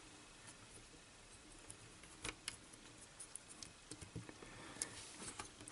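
Faint, scattered small clicks and taps of fingers working a little wire spring onto the plastic pinch roller arm of a Sharp GF-9191 cassette mechanism; the clearest click comes a little past two seconds in.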